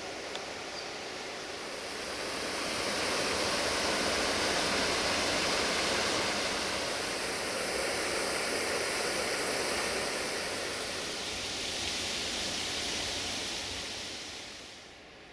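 Rushing water of a waterfall: a steady hiss that swells about two seconds in and fades out near the end.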